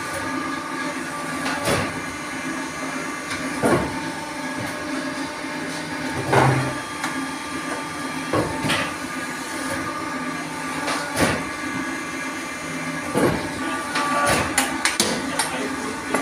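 Pan mixer of a fly ash brick plant churning lumps of fly ash and cement mix: a steady machine hum under irregular knocks and clanks every couple of seconds, with several in quick succession near the end.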